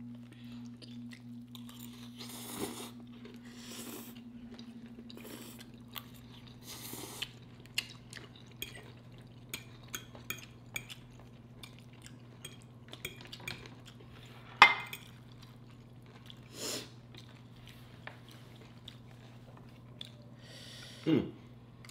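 Eating at a table: chewing and crunching with scattered light clicks of cutlery on plates, and one sharper clink about two-thirds of the way through. A steady low hum runs underneath.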